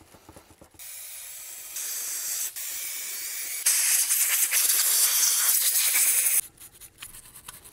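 Compressed air from a blow gun hissing as it blows out the passages of a Yamaha FZR600's inline-four carburetor bank after cleaning. It starts about a second in, grows louder in two steps, and cuts off sharply near the end.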